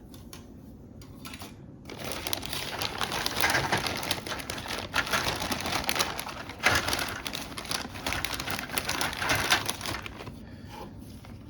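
Plastic model kit parts and their packaging being handled: a crinkling rustle with many small clicks and taps. It starts about two seconds in and dies down near the end.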